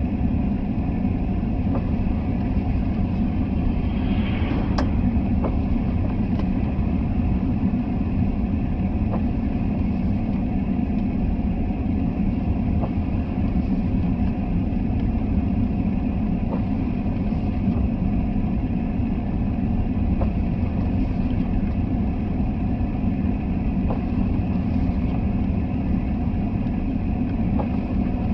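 A car being driven at a steady pace: constant engine and road noise, with no change in speed.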